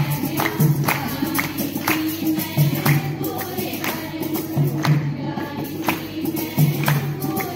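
Group of women singing a Punjabi folk song in chorus for a Giddha dance, over steady rhythmic hand-clapping at about two to three claps a second.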